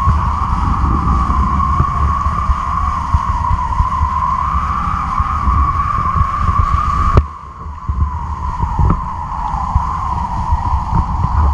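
Wind buffeting a camera mounted on a kite's flying line, a fluttering rumble with a steady droning hum over it. About seven seconds in there is a sharp click, and the noise drops for about half a second before it returns.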